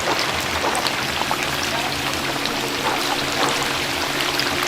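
Chicken deep-frying in hot oil: a steady sizzling hiss with many small crackles, over a faint steady hum.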